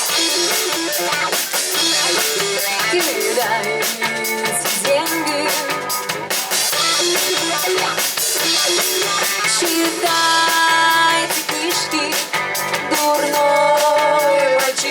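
Live cover band playing a pop-rock number: a drum kit keeps a steady beat under electric guitar and bass, with held notes about two-thirds of the way through and again near the end.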